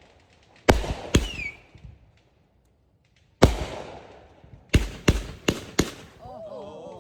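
Fireworks bursting with sharp, booming bangs. There are two bangs, then a pause of about a second, then a loud bang followed by a quick run of four more.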